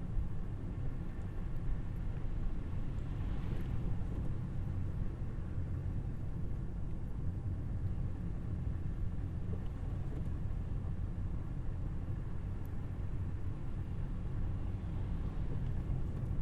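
Steady low road and tyre rumble from a Tesla Model Y electric car being driven, with no engine sound. Brief swells of hiss come about three seconds in and again near the end.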